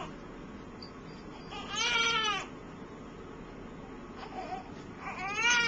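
Newborn baby crying in two short cries, one about two seconds in and another starting near the end.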